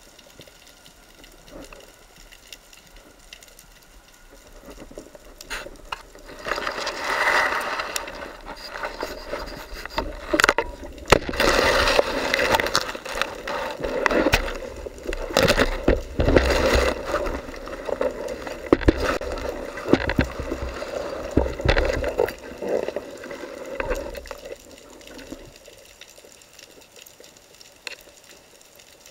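Underwater handling noise picked up through a diver's camera housing. It starts quiet, then runs for many seconds as irregular rustling, knocking and scraping while the speargun and camera push through seagrass on the seabed, and dies down near the end.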